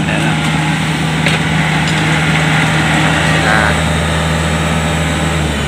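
Diesel engine of a tracked rice combine harvester running steadily as the machine drives up close; its steady note changes near the end.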